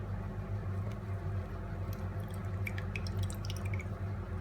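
Lemon juice dripping into shallot and ginger juice as a lemon is squeezed by hand: a scatter of small drips starting about a second and a half in, over a steady low hum.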